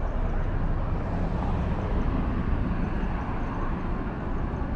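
Outdoor city street ambience: a steady low rumble with no single sound standing out.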